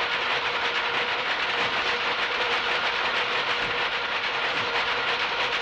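Textile mill power looms running together, a loud, fast, continuous mechanical clatter with a steady hum underneath.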